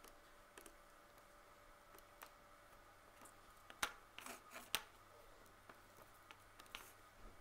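Quiet desk handling sounds: scattered faint clicks from a Casio scientific calculator being keyed and shifted across the paper worksheet, with two sharper clicks about four seconds in and a short scrape between them. A pen scratches on the paper near the end.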